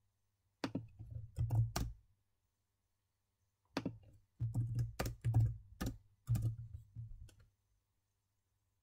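Typing on a computer keyboard: a short run of keystrokes about a second in, then a longer run from about four to seven and a half seconds in.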